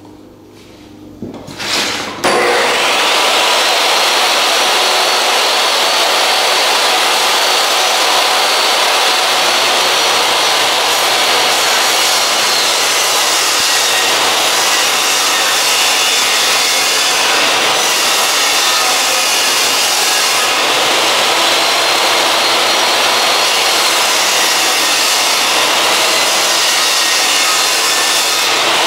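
Electric power saw starting about two seconds in and running steadily through a cut in a hardwood flooring board, with a few light handling knocks just before it.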